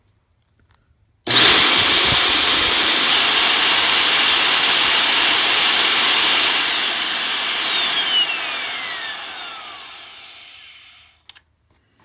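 Hoover Portapower CH30000 vacuum cleaner motor switched on about a second in, running at full speed with a high whine and rush of air for about five seconds, then switched off and spinning down with a falling whine. It runs normally on a replacement plug and switch, so the motor is sound and the fault lies in the melted plug.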